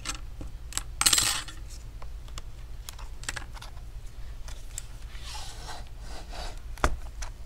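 A 14-inch laptop LCD panel being handled and lifted out of its display lid: scattered light clicks and taps of the panel and gloved hands against the lid frame, with a short scraping rustle about a second in and a sharper click near the end.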